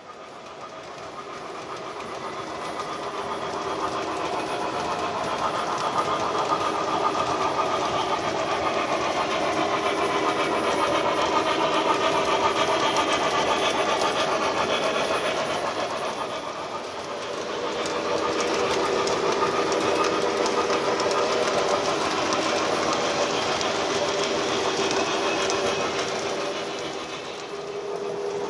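O scale model freight train rolling past on three-rail track, its wheels clattering over the rails over a steady motor hum. It grows louder over the first few seconds, eases off briefly about two-thirds of the way through, and then rises again.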